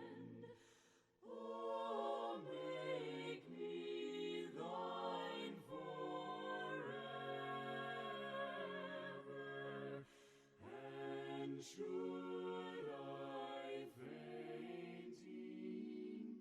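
Faint a cappella choir singing slow, held chords, with short breaks between phrases about a second in and again about ten seconds in.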